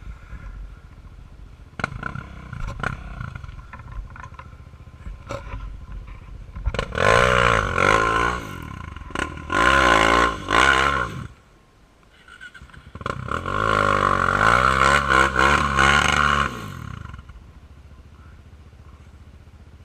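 Sport quad ATV engine through an open aftermarket exhaust, running low with some knocks and rattles, then revved hard about seven seconds in, pitch climbing and falling through two or three pulls. After a brief drop it is revved again in one long pull from about thirteen to seventeen seconds, then settles back to a low run.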